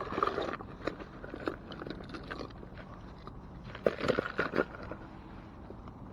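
Small metal finds being handled and dropped into a tub: scattered clicks, rattles and scrapes, bunched just after the start and again about four seconds in.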